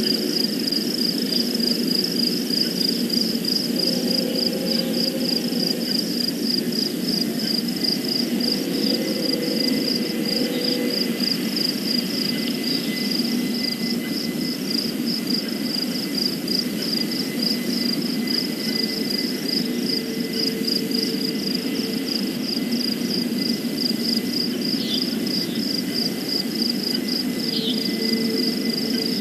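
Night insects, crickets or katydids, chirping in a fast, even, high-pitched pulse, over a steady low background rumble.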